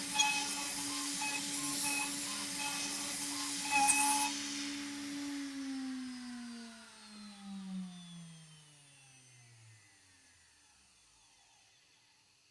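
CNCDepot S30C high-speed spindle on a CNC router milling aluminum: a steady whine under a hiss of cutting noise, with short high tones repeating about twice a second. About halfway through the cutting stops and the spindle spins down in a long falling whine that fades to near silence.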